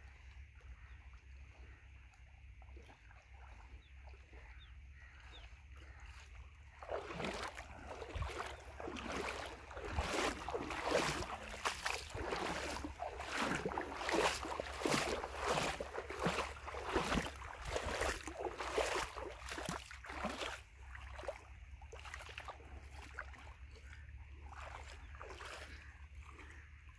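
Shallow river water splashing and sloshing around a person wading through it, in quick irregular strokes that start about a quarter of the way in and stop about three quarters through.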